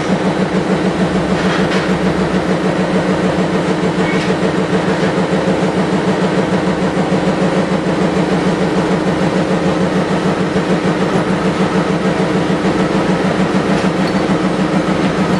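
A machine running steadily with a loud low hum and a fast, even throb.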